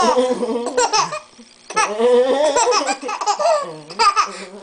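Baby laughing hard in two long bouts with a short gap between them, and a brief laugh again near the end.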